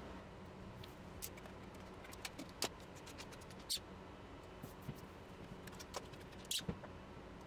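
Faint scattered clicks and light scrapes of an Allen key rubbing tape down onto a metal CNC machine bed, with a low steady hum underneath.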